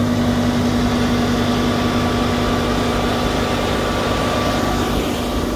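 Fendt 1167 track tractor's diesel engine idling steadily, with a constant hum over a broad hiss.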